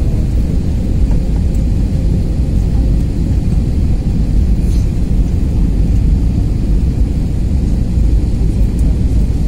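Steady low rumble of jet airliner cabin noise, the engines and rushing airflow heard from inside the cabin during the descent to land.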